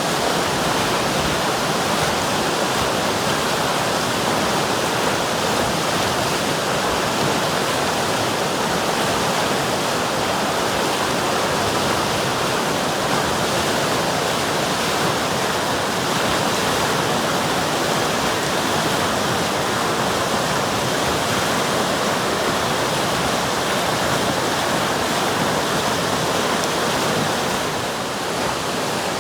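River water rushing and splashing in a steady, even roar of white noise.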